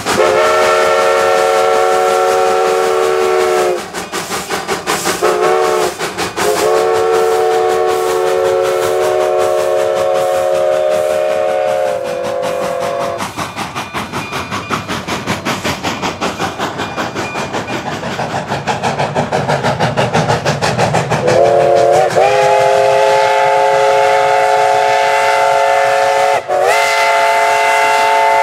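Detroit, Toledo & Ironton five-chime steam whistle on a Denver & Rio Grande Western narrow-gauge locomotive blowing its chord: a long blast, two short toots, then another long blast whose top notes drop out at the end. A steady beat of locomotive exhaust follows with no whistle. Then a Nathan five-chime steam whistle on another D&RGW locomotive sounds a long blast that slides up onto its chord, with a brief break near the end.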